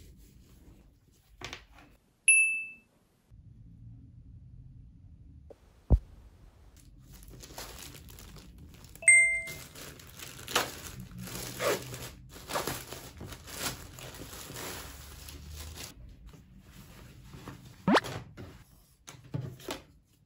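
Thin plastic packaging bag crinkling and rustling as it is opened and handled, for about nine seconds through the middle, with a sharp click before it and another near the end. Two short beeps also sound, one about two seconds in and one about nine seconds in.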